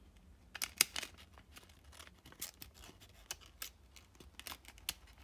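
Folded sheet of origami kami paper rustling and crackling in the fingers as flaps are slid and pressed together: a quick run of sharp paper crinkles, the loudest a little under a second in.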